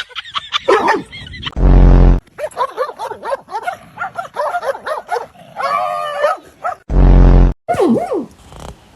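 A dog vocalising: a run of short, pitched whines and yips that rise and fall, with two loud, low noises about half a second each, near two seconds in and again near seven seconds.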